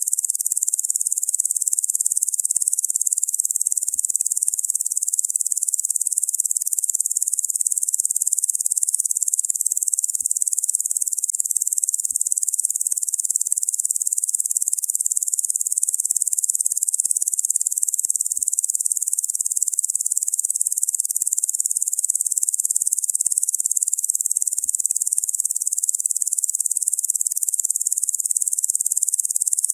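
Locusts buzzing: a dense, steady, high-pitched insect drone that runs on without a break or change in level.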